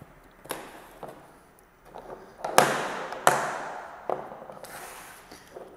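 Plastic drone frame parts knocking and clacking against a tabletop as they are handled, several separate knocks, the two loudest about halfway through.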